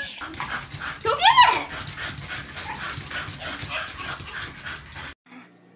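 A dog gives a short rising yelp about a second in, over the low rumble and rattle of a wagon rolling on pavement. The sound cuts off suddenly near the end, leaving a faint low hum.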